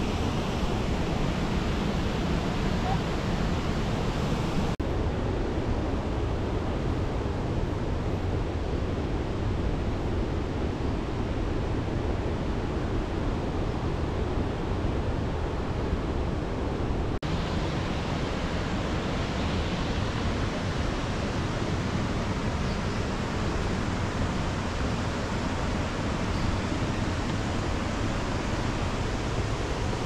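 Waterfall rushing: a steady, dense noise of falling water, whose brightness shifts abruptly at two cuts, about five and seventeen seconds in.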